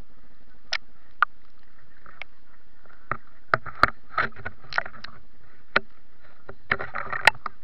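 Lake water slapping and splashing right at a camera riding on the surface, with a few sharp slaps early on that come thicker from about three seconds in and again near the end, over a low steady wash.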